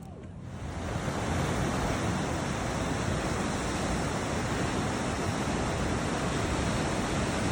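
Steady rushing of ocean surf, swelling up over the first second and then holding even.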